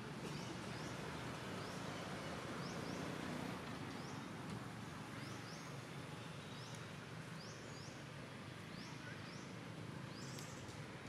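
Outdoor ambience: short high chirps repeat every second or two, sometimes in pairs, over a steady low background hum.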